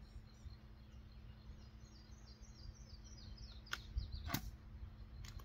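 A songbird singing a quick run of short descending high notes against a faint steady outdoor hum. Near the end come a few sharp clicks or knocks, about four and five seconds in.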